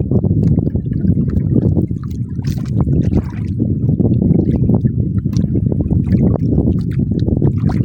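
Water sloshing and splashing close by, a loud, dense low rumble with crackling.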